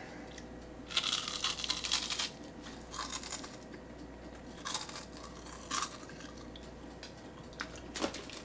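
Crunching and chewing of a deep-fried Doritos tortilla chip, with a dense run of crunches about a second in and then scattered single crunches. The chip is still crisp after frying.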